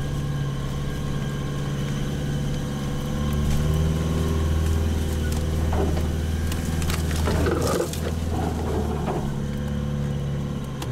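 Land Rover's engine running at low speed, heard from inside the cab as the 4x4 creeps along an off-road track; the engine note strengthens about three seconds in and holds.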